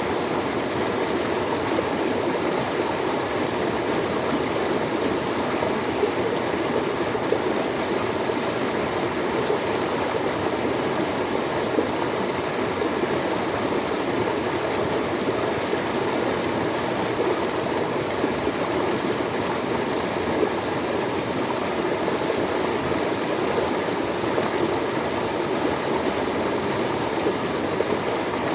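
Running water flowing steadily, an even rushing and trickling that does not change.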